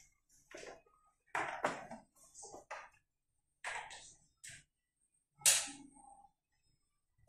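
A series of irregular knocks and clattering rattles from hard objects being handled, with the loudest knock about five and a half seconds in.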